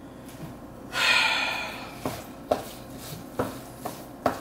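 Wooden spatula stirring sticky rice mash in a plastic bowl, giving a few sharp knocks against the bowl in the second half. About a second in there is a short rushing hiss that fades away.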